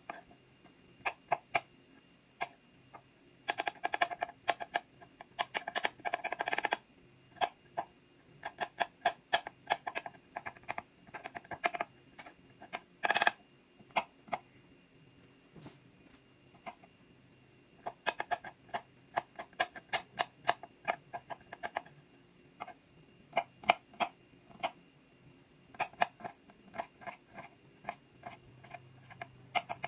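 Kitchen knife chopping garlic on a bamboo cutting board: quick runs of sharp taps of the blade on the wood, broken by short pauses, with one louder, slightly longer knock about halfway through.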